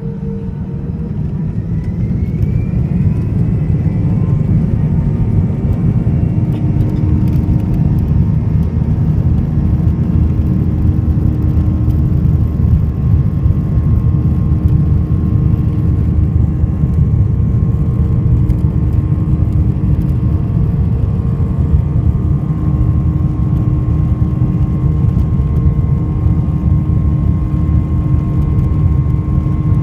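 Airliner's jet engines spooling up to takeoff thrust, a whine rising in pitch over the first few seconds, then a steady loud roar and low rumble heard from inside the cabin during the takeoff roll.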